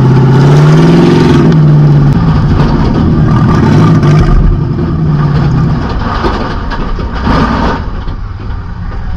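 Demolition derby car's engine running through open upright exhaust stacks, heard from inside the stripped cab, revving up briefly about a second in and then holding a steady rumble. The engine note drops away a little past halfway, leaving rough rattling noise with a single knock near the end.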